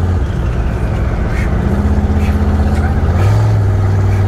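Twin-turbo Ford F-100 pickup's engine heard from inside the cab while driving: a steady deep drone that steps up in pitch about three seconds in.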